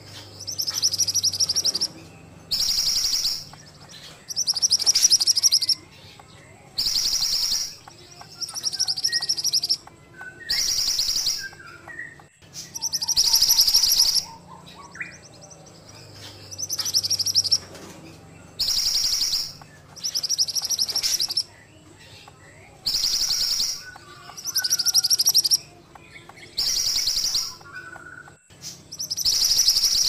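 A mantenan songbird singing: a string of loud, very high, rapid trilled phrases, each about a second long, repeated every two seconds or so.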